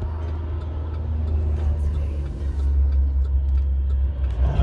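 Steady low road-and-engine rumble heard from inside a vehicle while driving.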